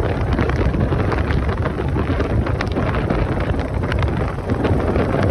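Wind buffeting the microphone of a moving motorcycle: a steady, loud rushing with frequent crackles, with the motorcycle's running and road noise mixed underneath.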